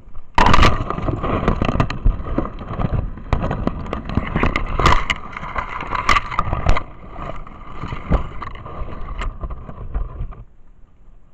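Loud rustling, crackling and scraping as brush and twigs rub against the handheld camera and clothing while pushing through thick undergrowth. It starts suddenly and cuts off about a second before the end.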